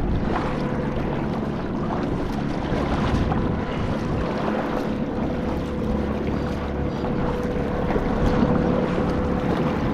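A fishing kayak moving along the lake while trolling: a steady wash of water and wind noise with a low rumble and a thin, steady hum.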